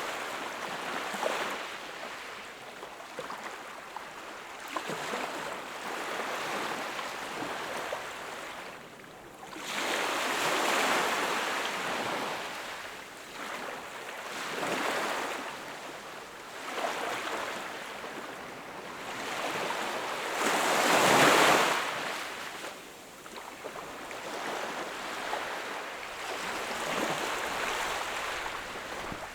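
Ocean waves breaking and washing on the shore, swelling and fading every few seconds, with the biggest wave about two-thirds of the way through.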